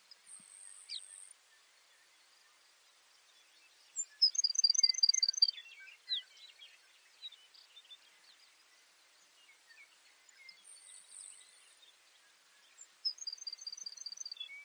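Baird's sparrow singing: two songs, each a quick run of about six high, clear repeated notes, one about four seconds in and one near the end. Two short faint high buzzes and scattered soft chirps come between them.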